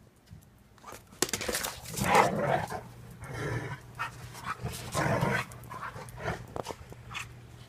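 A pet dog making short noises close to the microphone: about three loud huffing bursts, with clicks and small sounds between them.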